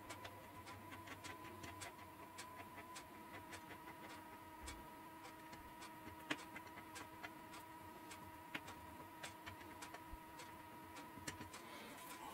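Faint, irregular light clicks and taps of a thin applicator tool working epoxy into a taped slot in a model aircraft wing. A steady faint high hum runs underneath.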